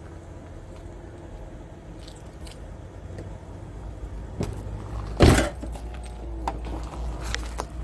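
Light clinks and knocks with one loud thump about five seconds in, over a steady low rumble.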